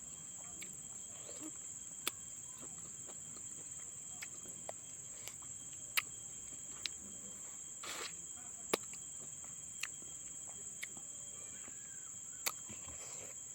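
Eating sounds from a fish head: sharp, irregular clicks and smacks about every second or two, with a brief rustle about eight seconds in. Behind it runs a steady high-pitched chirring of crickets.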